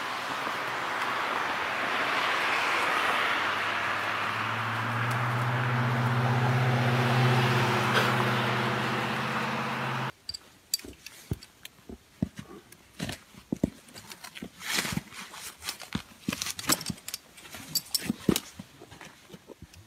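A steady rushing noise, joined about four seconds in by a low, even hum. About ten seconds in it cuts off abruptly to quiet, and scattered sharp clicks and knocks follow, from rope-rescue gear and carabiners being handled.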